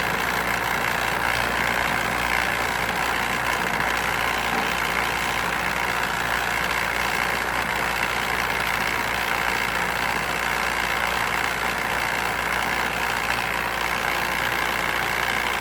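Compost sifter running with a steady mechanical drone, separating coarse material from fine compost.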